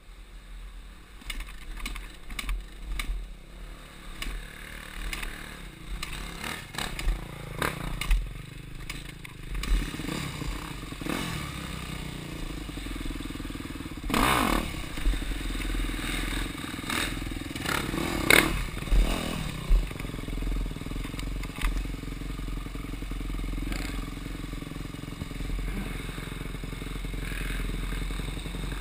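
Off-road dirt bike engine at low trail speed, revs rising and falling, with sharp knocks and clatter from the bike over roots and fallen logs. Two louder revs come about halfway through, and the engine runs steadier and louder near the end.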